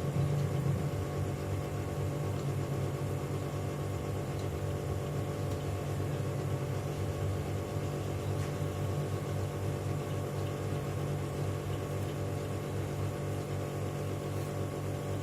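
Steady low electrical or mechanical hum, a drone that holds the same pitch without a break.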